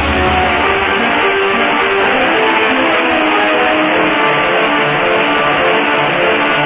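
Music: guitar playing a line of plucked, held notes. The heavy low end cuts out right at the start.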